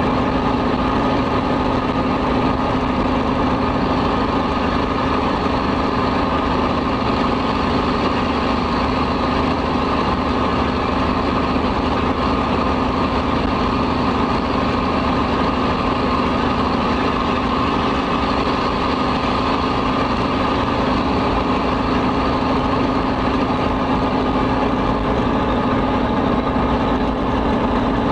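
Cummins N14 inline-six diesel of an International Eagle semi truck running steadily at cruising speed, an even, unbroken engine sound with no gear changes.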